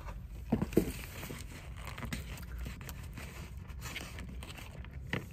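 Crinkling and handling of a cardboard burger box and its paper wrapping, with a couple of louder knocks about half a second in and another short knock near the end, over a steady low hum.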